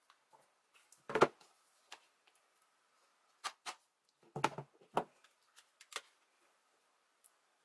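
Makeup palettes being handled and set down on a countertop: scattered light clacks and taps, the loudest about a second in and a small cluster of knocks about halfway through.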